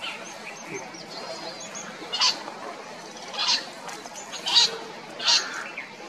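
Grey francolin (grey partridge) calling: four short, loud, harsh calls about a second apart in the second half, with faint high chirps behind.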